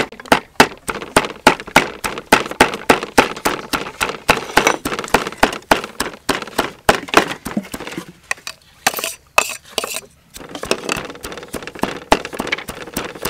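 Heavy cleaver chopping fast and steadily on a thick round wooden chopping block, mincing dried fish and shrimp, about four strokes a second. Around two-thirds of the way through, the chopping breaks off briefly, then starts again.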